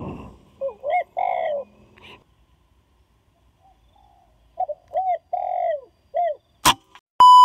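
Spotted doves cooing: two phrases of short, bending coos, each a second or two long. Near the end comes a single sharp crack, followed by a loud, steady high-pitched beep.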